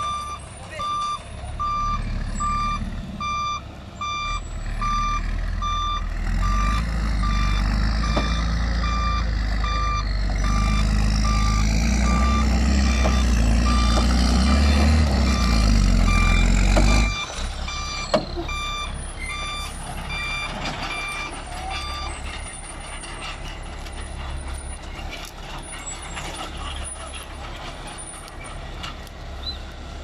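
BMC Pro log truck's diesel engine running hard under load while it reverses up a loose dirt track, its reversing alarm beeping steadily. Past the halfway point the engine drops back suddenly and a single sharp snap follows. The beeping stops a few seconds later, leaving the engine running quietly.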